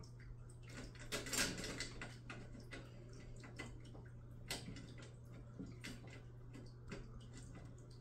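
Scattered light clicks and taps of metal rack parts and screws being fitted by hand during assembly, with a brief louder scrape about a second in, over a steady low hum.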